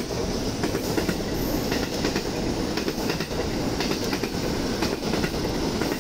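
Electric rapid train passing at speed: a steady rumble of wheels on rail, with irregular sharp clicks as the wheels cross rail joints and points.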